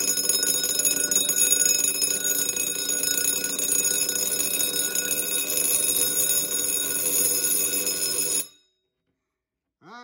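Simplex vibrating fire alarm bell ringing continuously, its hammer rapidly striking the cast iron gong while the hammer-height adjustment screw is turned to tune it in. The ringing cuts off suddenly about eight and a half seconds in.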